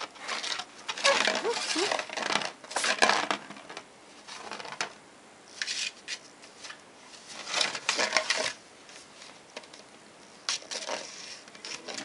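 A kitten scrabbling and rolling around inside a candy bowl, its claws scratching the bowl and wrapped candy rustling and crinkling, in irregular bursts with short quiet gaps.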